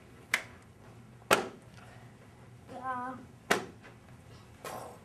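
Three sharp single hand claps, the first two about a second apart and the third about two seconds later, with a brief voice sound just before the third clap.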